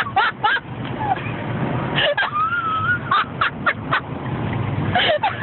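A woman's voice making short, high-pitched, drawn-out vocal sounds over a steady low rumble.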